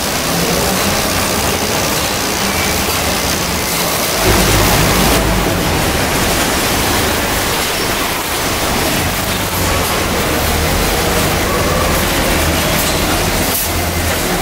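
Carton conveyors and palletizer machinery running on an oil filling and packing line: a steady noisy hum, with a brief louder low rumble about four seconds in.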